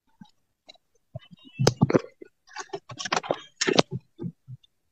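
A flurry of sharp clicks and rattles, like a phone being handled inside a car, starting about a second in and dying away near the end.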